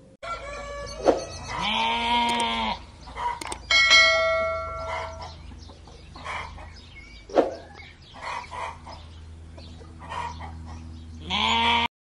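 Farm animal calls, a rooster crowing, goats bleating and hens clucking, as a string of separate calls one after another over a steady low hum.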